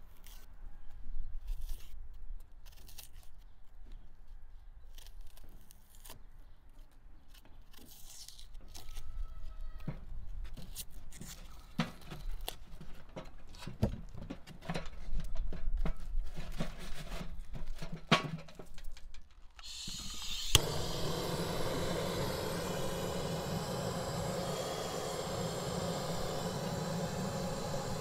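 Scattered knife taps and small clicks of kitchen work at a table. About two-thirds of the way through there is a sharp click, then a hand-held butane gas torch hisses steadily as it is held to the firewood in a stove to light it.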